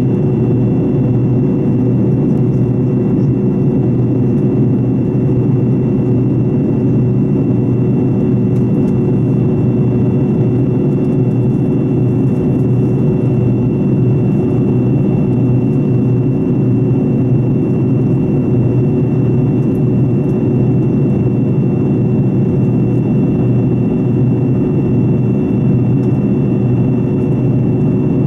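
Fokker 70's rear-mounted Rolls-Royce Tay turbofan heard from a cabin seat beside it, running steadily in the climb. The sound is a constant low drone with a thin high whine held on top.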